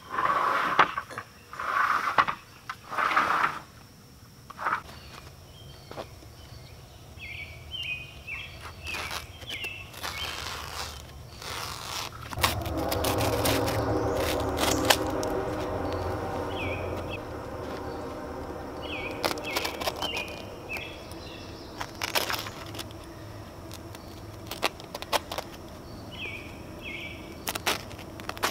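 Scraping and rustling of carpet being cut and handled with a utility knife, with short bird chirps repeating throughout. A few louder bursts of noise come in the first few seconds, and a steady engine-like hum swells midway for several seconds.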